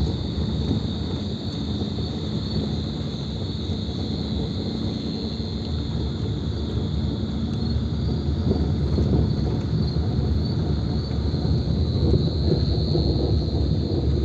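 Low rumble of a vehicle driving on a forest road, growing a little louder in the second half, with a loud, steady chorus of crickets ringing high above it.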